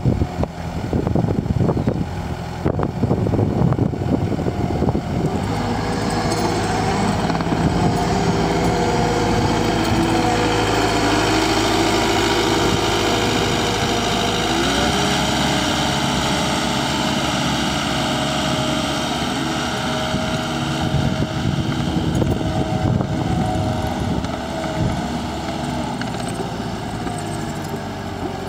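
Caterpillar compact track loader's diesel engine running under load as the machine drives and turns. About five seconds in the engine revs up and holds at high throttle, then eases off slightly near the end.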